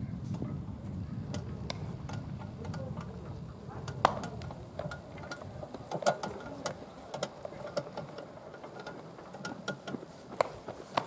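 Baseballs smacking into leather gloves during a game of catch: a string of sharp pops at irregular intervals, from several pairs throwing at once, the loudest about four seconds in. A low rumble fills the first few seconds.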